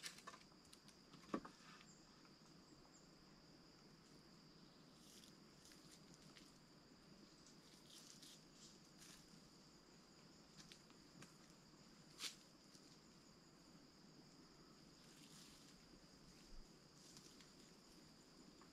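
Near silence in woodland: a faint steady high insect trill, with a few soft scattered clicks and cracks, the sharpest about a second in and about twelve seconds in.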